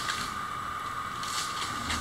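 Rope being hauled hand over hand to drag a boat hull ashore, with a few brief rustles and scrapes, over a steady high-pitched drone.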